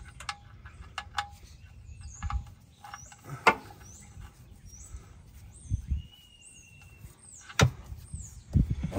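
Scattered metallic clicks and knocks from a ratchet and socket tightening an oil drain plug back into the oil pan, with two louder knocks. A bird calls in the background with a run of short high chirps through the middle.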